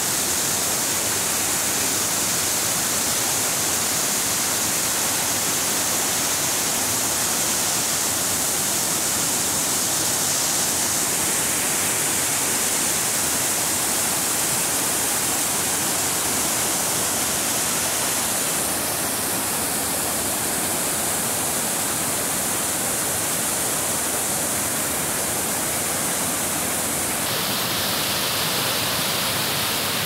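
Whitewater rapids and a small waterfall rushing over rock slabs and boulders: a steady, loud, dense hiss of falling water, shifting slightly in tone a few times.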